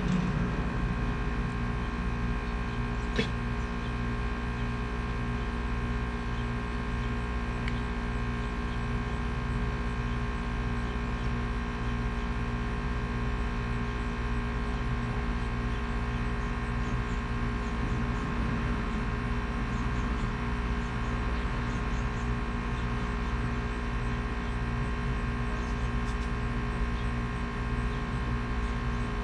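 Steady electric hum of a handheld plastic welding tool running while mesh is pressed into a kayak's plastic hull, with several fixed tones and a faint regular flutter.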